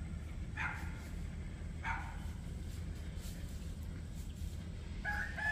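Two short animal calls about a second apart early on, then near the end a rooster begins a long drawn-out crow.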